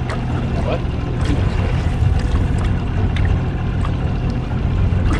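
A small fishing boat's motor running steadily under way, a low constant drone mixed with the rush of water and wind.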